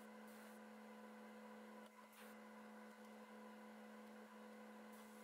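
Near silence: a faint steady electrical hum, with a couple of brief faint hisses.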